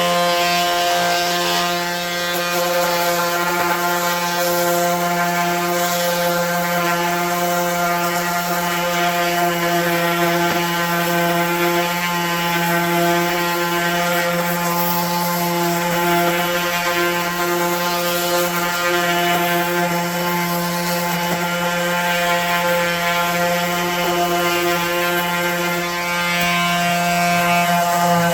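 Electric sander running steadily against the wooden table, a constant motor hum with the hiss of sandpaper on wood.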